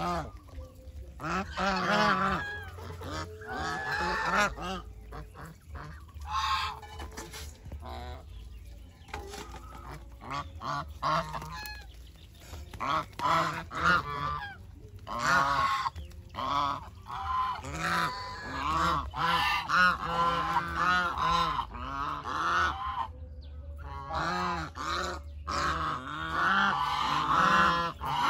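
A flock of domestic geese honking and calling over one another, with scattered calls at first and almost continuous, overlapping honks from about halfway through.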